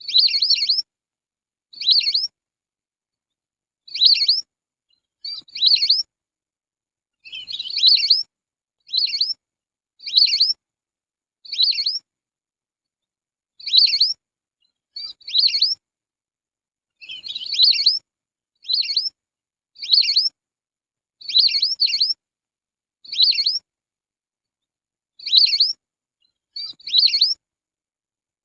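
Lesser whistling duck (belibis) calls played as a call lure: short, shrill whistled notes, repeated one after another every second or two, sometimes in quick pairs.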